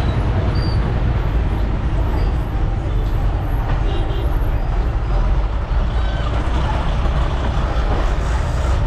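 TNSTC bus's diesel engine and road noise heard from inside the cabin while the bus drives along: a steady, loud rumble.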